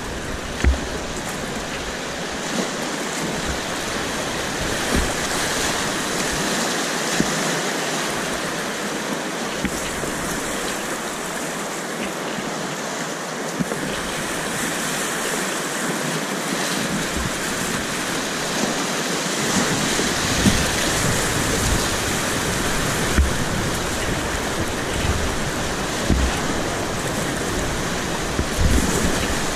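River rapids rushing steadily past a whitewater kayak, with occasional short splashes and knocks from the paddle and hull. The rushing grows a little louder in the second half as the boat runs into rougher white water.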